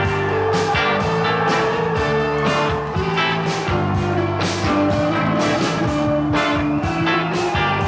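Live rock band playing an instrumental passage with electric guitar over a steady drum beat.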